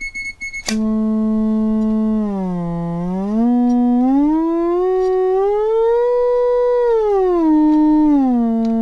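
Sine-wave output of a vacuum-tube HP 200CD wide range oscillator, the repaired unit working again, heard as a slightly buzzy tone that starts about a second in. As the frequency dial is turned it dips lower, glides up to about twice its starting pitch and holds, then slides back down to where it began.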